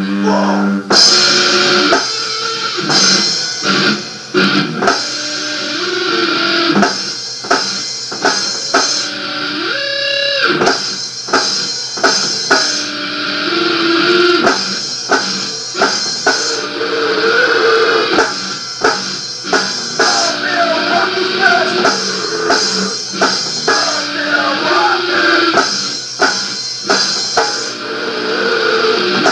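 Rock band playing a song: electric guitar over a drum kit keeping a steady beat.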